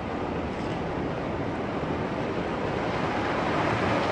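Surf breaking and washing in a steady rush of water.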